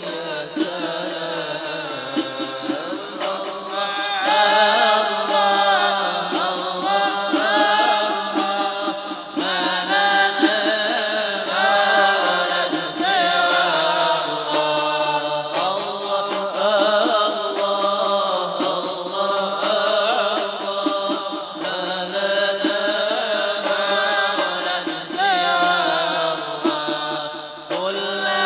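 Men's group chanting a devotional Arabic syair in unison, a melismatic sung refrain, accompanied by hand-struck frame drums (terbang) beating a steady rhythm.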